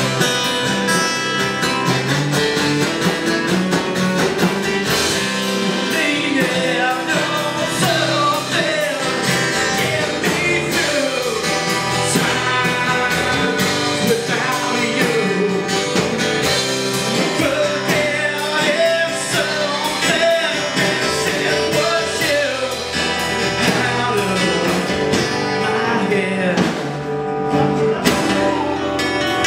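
Live acoustic rock song: three acoustic guitars strumming and picking together while a man sings lead.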